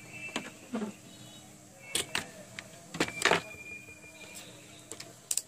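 Sharp clicks and knocks of small tools and multimeter probes handled on a repair bench, loudest about three seconds in. A thin, high steady beep sounds briefly at the start and again for about a second a little later.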